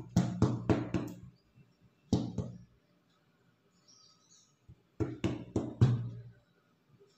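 Hands patting and tapping a blouse flat against cloth spread on a floor: quick runs of soft taps in three bursts, one at the start, a short one about two seconds in, and another about five seconds in.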